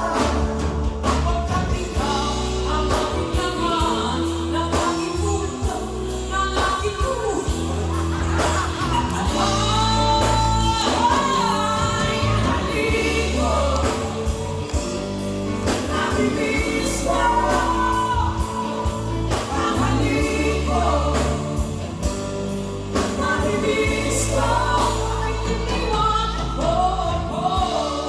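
Music: a song sung by a solo voice over instrumental backing with a steady bass line.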